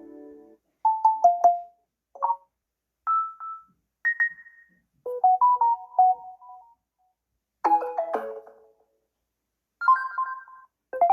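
Samsung Galaxy Tab A 8.4 notification tones played one after another: about eight short, different electronic chimes of a few notes each, with brief silences between them.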